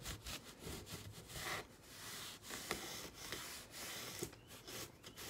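Faint rubbing and wiping as wood stain is worked by hand into a wooden frame, in soft repeated strokes with a few light taps.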